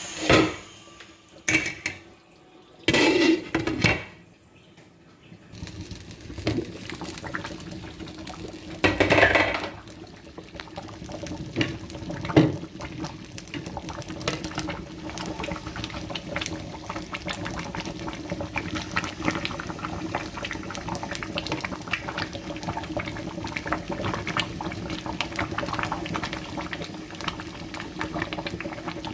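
Pot of fish stew bubbling and simmering, a steady crackly hiss of fine pops. There are a few louder, short noises in the first dozen seconds.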